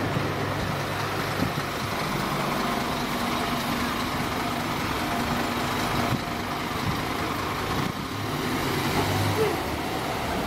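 Diesel engine of a Scania K440 coach running as the coach pulls away close by and drives off, over steady street traffic noise.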